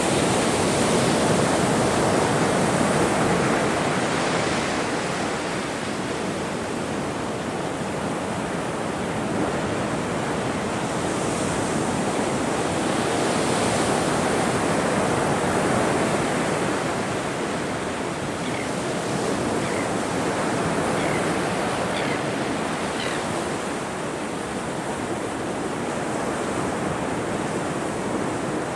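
Ocean surf rushing continuously, swelling and easing as waves break and wash in. A bird chirps faintly a few times past the middle.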